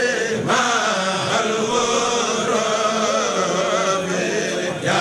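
Several voices chanting an Arabic devotional poem together in a steady sung recitation, in the style of a Mouride khassida. There are short breaks for breath near the start and near the end.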